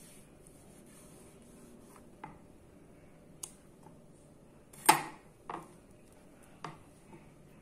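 Sakai Takayuki Damascus 33-layer chef's knife slicing a tomato on a wooden cutting board: five separate knocks as the blade comes through and meets the board, about a second apart, the loudest near the middle.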